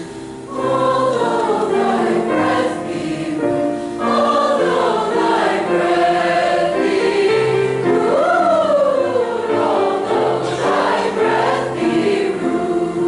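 Combined high-school choirs singing a choral song together in several voice parts.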